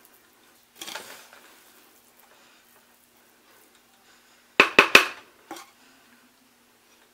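A spoon turning cooked biryani rice in a metal pot: a soft scrape about a second in, then three quick sharp knocks of the spoon against the pot a little past the middle, with a fainter one just after.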